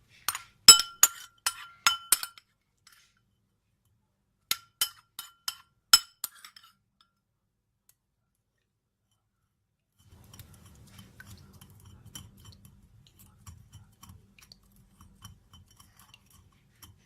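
Glassware clinking: a quick run of sharp, ringing clinks in the first two seconds or so, and another run about four and a half seconds in. From about ten seconds in there is a faint low rumble.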